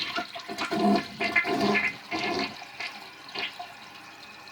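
Toilet flushing: a loud rush of water for the first couple of seconds, then a quieter steady hiss.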